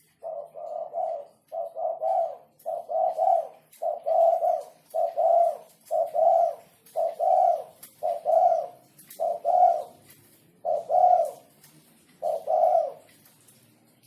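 Spotted dove (terkukur) cooing: a run of about a dozen short, low coos at roughly one a second, the gaps growing a little longer toward the end.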